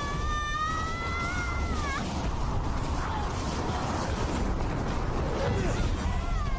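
A woman's long, high scream, held for about two seconds and breaking off with an upward cry, over a steady low rumble. A shorter, falling cry follows near the end.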